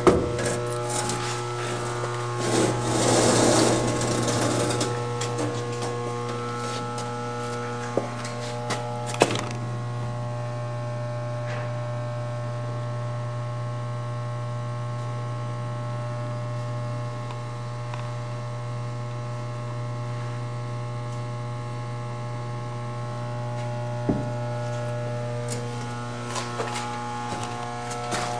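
Steady low electrical hum with several fainter steady tones above it. A burst of rustling comes a few seconds in, and a few sharp clicks come later.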